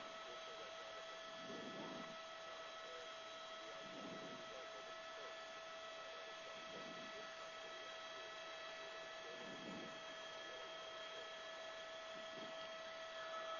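Faint steady electrical hum on a helicopter's intercom line, several fixed high tones held throughout, with soft low swells about every two and a half seconds.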